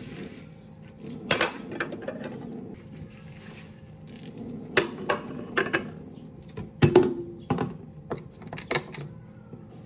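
Kitchen dishes and utensils being handled: an irregular series of clinks and knocks, one about two-thirds of the way in ringing briefly.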